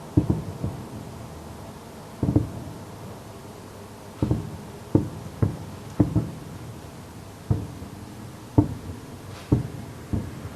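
Fireworks shells bursting: about a dozen deep booms at irregular intervals, some in quick pairs, each trailing off in a short rumble.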